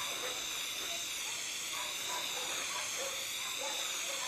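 Gas torch flame hissing steadily with a slight waver while it heats a soldering copper, which has reached a dark cobalt-blue heat, nearly hot enough to solder.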